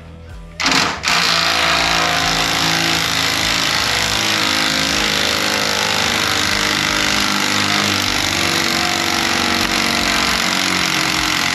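Impact wrench hammering continuously on a stabilizer-bar mounting bolt. It starts about half a second in, runs steadily at full loudness and stops abruptly at the end.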